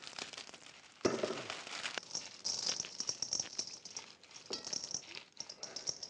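Dried corn ears being shelled by hand, one cob rubbed against another over a stainless steel bowl: a crackling rattle of kernels breaking loose and pattering into the metal bowl. It comes in spurts with short pauses, starting about a second in.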